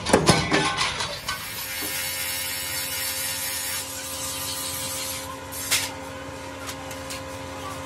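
Steel blade blanks clattering onto a metal pile for about a second, then a motor-driven grinding wheel running with a steady hum while a curved chaff cutter blade is held against it, giving a grinding hiss that eases off about halfway through. One sharp knock near the end.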